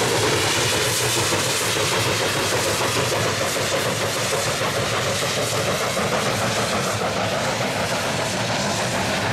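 Coal-fired steam locomotive working hard as it passes close by, its exhaust a loud, steady rushing roar.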